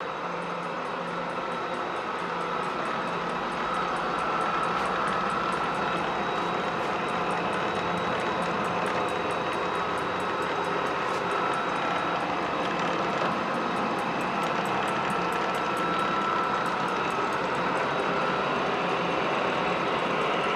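Machinery running steadily: an even mechanical hum with a faint steady whine over it, growing a little louder about four seconds in.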